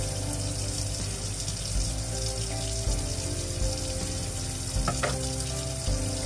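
Background music with held notes over a steady sizzle of food frying in a pan, and a brief click about five seconds in.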